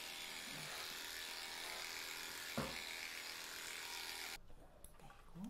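Small cordless pet hair clippers running with a steady buzz while trimming a dog's coat, with one brief click about halfway, then switched off about four seconds in.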